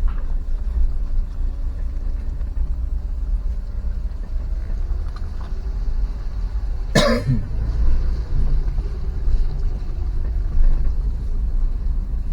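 Steady low rumble of a vehicle on the move, with one short cough about seven seconds in.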